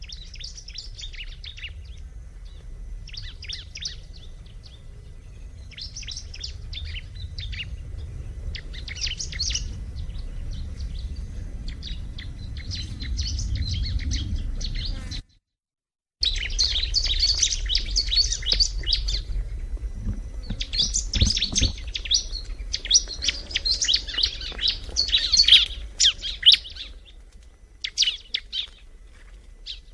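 Bar-winged prinia (ciblek) singing in repeated bouts of rapid, high chirping trills over a low rumble. The sound cuts out completely for about a second around the middle, then the song carries on louder.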